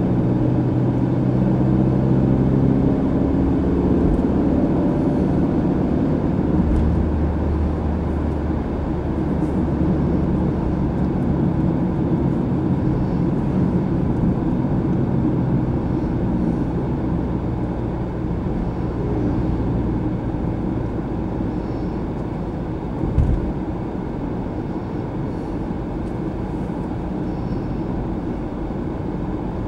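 Car driving at steady speed, heard from inside the cabin: a constant hum of engine and tyre noise whose engine note shifts a few times. A single short bump about two-thirds of the way through.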